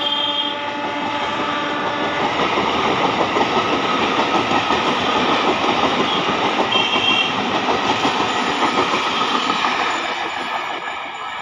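Bombardier-built electric multiple-unit local train running fast through a station, its wheels clattering over the rail joints in a dense, rapid rhythm. A horn trails off in the first second or two, and the clatter fades near the end.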